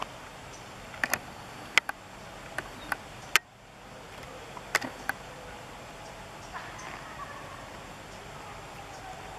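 A scatter of sharp clicks and taps, about nine in the first five seconds, over a steady outdoor background hiss.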